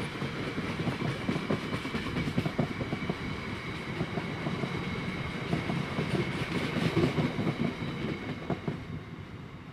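Bogie tank wagons of a freight train rolling past, their wheels clattering over the rail joints with a thin steady high tone over the rumble. The sound dies away near the end as the last wagon goes by.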